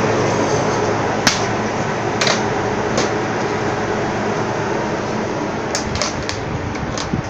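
A steady machine drone with a low hum, with a few sharp clicks scattered through it.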